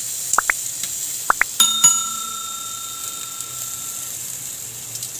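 Subscribe-button sound effects: two pairs of quick rising blips, then a single bell ding about one and a half seconds in that rings on for a couple of seconds. Underneath is the steady sizzle of chicken grilling over charcoal.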